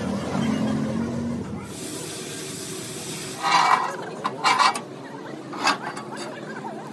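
Steel bar knocking against the steel plate of an excavator boom, giving a few sharp metallic clanks with a short ring, about three times in the second half.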